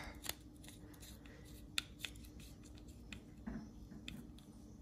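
Faint, scattered small clicks and light scraping of a screwdriver bit turning small screws in titanium knife handle scales, snugging them down.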